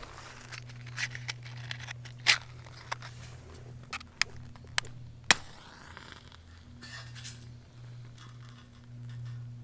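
Metal camp cookware and utensils being handled: a series of scattered sharp clinks and knocks, the loudest a little over five seconds in, over a steady low hum.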